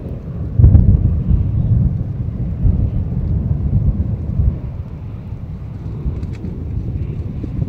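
Thunder rumbling, swelling suddenly about half a second in and rolling on for about four seconds before easing off, over a low rush of wind on the microphone.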